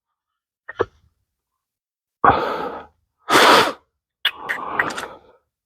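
Tool work on a sway bar link's nut during tightening: one short click, then three short rasping bursts of noise, the last with sharp clicks.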